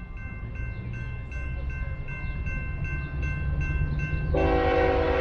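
A train rumble grows louder under a bell dinging steadily about two and a half times a second. About four seconds in, the bell stops and a locomotive air horn starts one long, loud blast.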